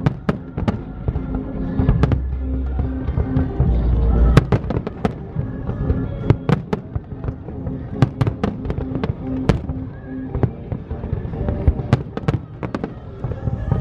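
Aerial fireworks shells bursting in rapid, irregular succession: many sharp bangs and crackles, with a low rumble building to the loudest bang about four seconds in.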